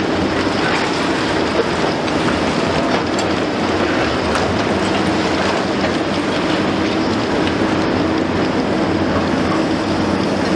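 Liebherr 954 long-front demolition excavator at work: its six-cylinder diesel engine running steadily under load, over a constant crackle and rattle of concrete and rubble breaking away and falling.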